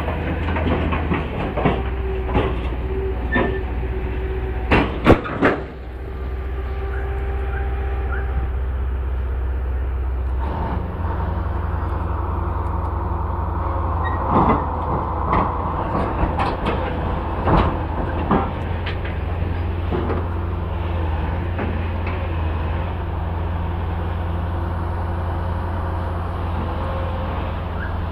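Diesel engine of a UVZ tracked excavator running steadily as the machine crawls up onto a lowboy trailer, with scattered sharp metallic knocks of the steel tracks and deck, the loudest pair about five seconds in.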